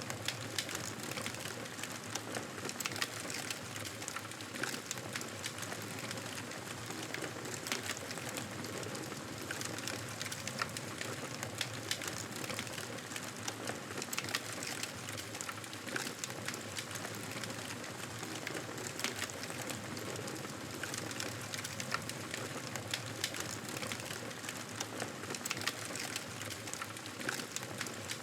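Wood fire crackling in a fireplace: a steady soft hiss with frequent small, sharp pops and snaps scattered throughout.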